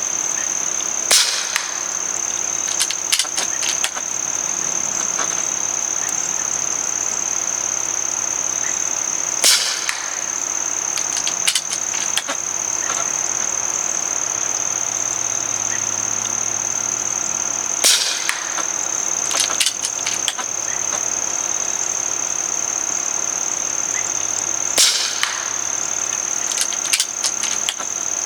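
Air Venturi Avenger .22 regulated PCP air rifle fired four times, about eight seconds apart, each sharp shot followed a second or two later by a short cluster of clicks as the side lever is cycled to chamber the next pellet. Crickets trill steadily in the background.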